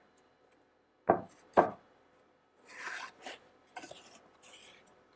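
Two sharp thuds of a cardboard box against a wooden tabletop about half a second apart, then the cardboard lid scraping and rustling as it is pulled open.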